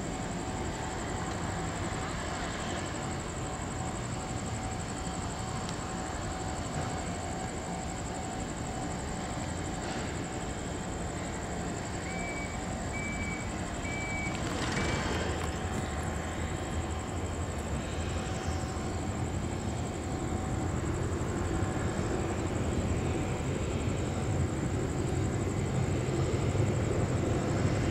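Jet aircraft engines running at taxi idle: a steady rush with a thin high whine, growing louder with a deeper rumble in the last few seconds. Three short high beeps sound about halfway through.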